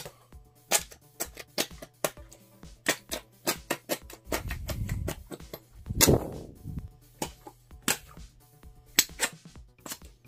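Gloopers slime-shooting toy monster being fired: a run of sharp, irregular wet pops and clicks as air and slime are pushed out. A longer squelching burst comes about four seconds in and a louder one about six seconds in, over soft background music.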